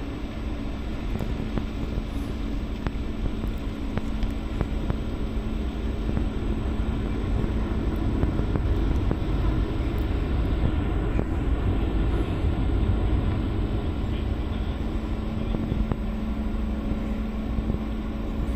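Large cruise ferry's engines running as a low, steady rumble with a steady hum over it as the ship manoeuvres slowly in to berth; the rumble grows a little louder midway.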